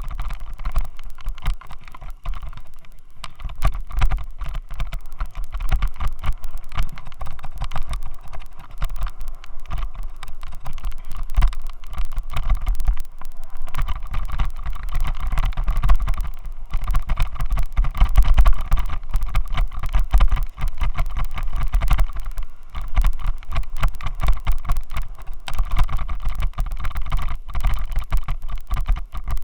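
Continuous low rumble and rapid rattling buzz picked up through a helmet-mounted Xiaomi Yi action camera: vibration noise caused by a faulty helmet mount.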